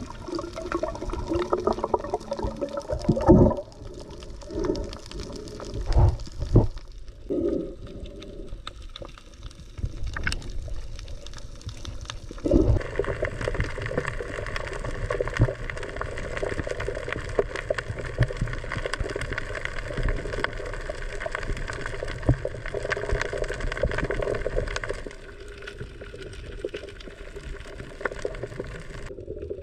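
Underwater sound heard through a submerged camera: muffled water movement and gurgling bubbles, with several dull knocks in the first half, then a steadier rushing from about halfway through.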